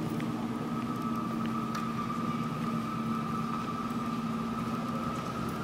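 Electro-mechanical sound installation playing a steady drone through its wooden speaker horns: a low hum with a higher held tone that comes in about half a second in.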